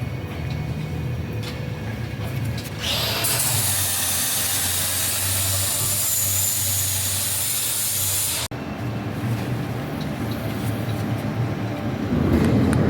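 A loud, even hiss of escaping air or spray starts about three seconds in, holds for five or six seconds and cuts off suddenly, over a truck's diesel engine idling steadily.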